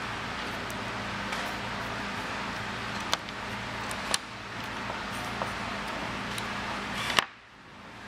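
Handling noise from a plastic wire-marking tool and a bundle of insulated wires: a few sharp clicks over a steady low hum and hiss. The loudest click comes near the end, after which the hum cuts out suddenly.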